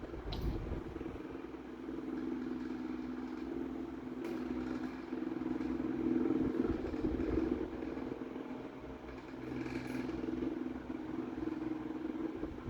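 Mallory Boreal 30 cm desk fan running with a steady hum and vibration, swelling and easing slightly, with a few faint clicks. The heavy vibration comes from its unbalanced replacement parallel-blade propeller.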